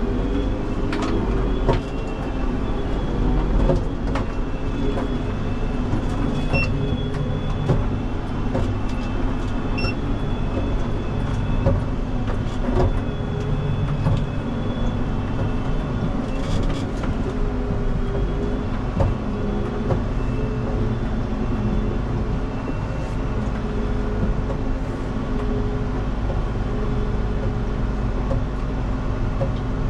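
Farm machine's diesel engine idling steadily, with scattered light metallic clanks and knocks as equipment is hitched up.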